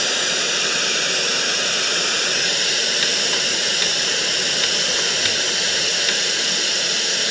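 Loud, steady hiss of FM radio static from a Philco micro system's speakers, tuned to 87.5 FM with no station: the sign that the set has powered on.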